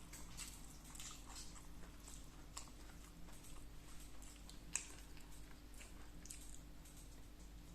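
A person chewing food close to the microphone, with soft scattered mouth clicks and smacks and one sharper click about five seconds in.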